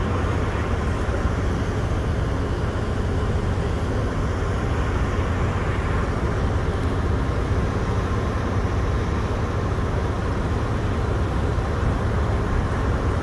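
Steady low rumble of city traffic, an even noise with no distinct events.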